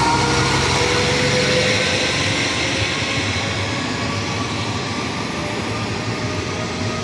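AMX diesel railcar set pulling out of the station, its engine and transmission note rising slowly as it gathers speed over the steady rumble of the carriages rolling past. The sound eases off a little towards the end.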